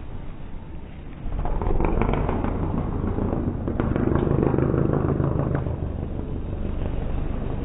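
Rally car going past at speed on a snowy gravel stage: the engine noise rises sharply about a second in, with sharp pops and crackles among it, and eases slightly over the last couple of seconds.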